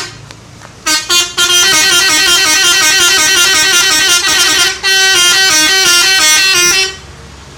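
Telolet musical horn on a truck playing a melody of changing notes. Two short toots come about a second in, then a run of quick stepping notes for about five and a half seconds, with a brief break near the middle, stopping shortly before the end.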